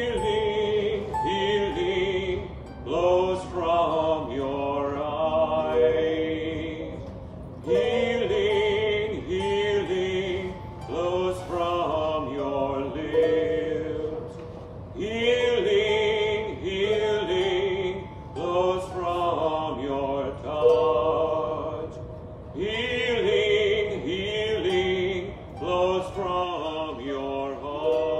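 A man singing a slow worship melody in long phrases of about seven seconds each, with short breaths between, accompanied by a harp.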